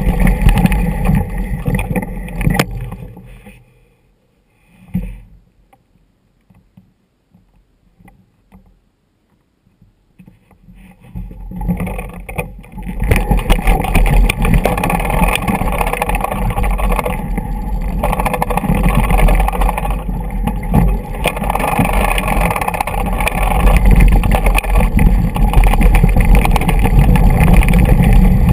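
Mountain bike rolling down a rocky dirt trail: heavy wind rumble on the microphone over a constant clatter and rattle from the loose stones. A few seconds in it fades to near silence for several seconds, broken by a single knock, then picks up again and grows louder toward the end.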